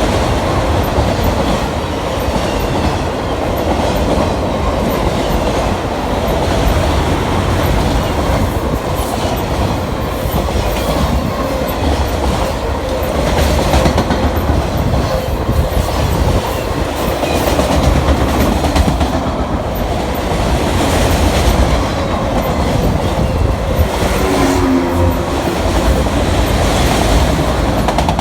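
Autorack freight cars of a CN train rolling past at speed: a loud, steady rumble of steel wheels on rail with a running clickety-clack of wheels over rail joints.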